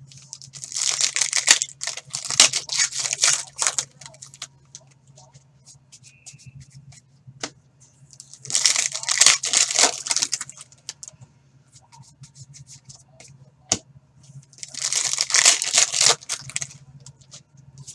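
Foil wrappers of Panini Contenders hockey card packs being torn open and crinkled in three bursts of one to three seconds each, with light clicks of card handling between them.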